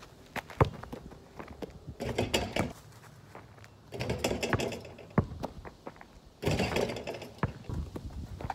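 A dunk on a portable backyard basketball hoop: the rim and pole rattle about four seconds in, with other stretches of rustling footsteps in dry grass and leaves before and after. There are a few sharp knocks, the loudest near the start.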